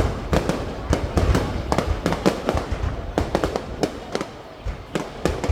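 Fireworks going off in a rapid, irregular string of sharp cracks and bangs, several a second, over a low booming rumble.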